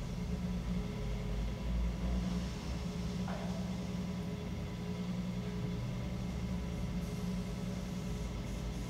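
Electric potter's wheel running with a steady low hum while a large mound of clay is coned up on it between the hands.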